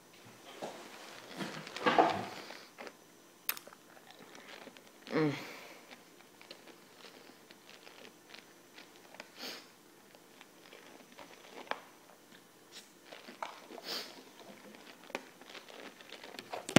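Mouth noises from a mouthful of Sour Warheads hard candies being sucked, not chewed: wet sucking and many small scattered clicks, with a couple of louder muffled vocal sounds around two and five seconds in.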